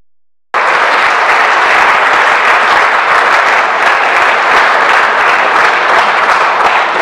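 Audience applauding steadily and loudly, after the sound drops out for about half a second at the start.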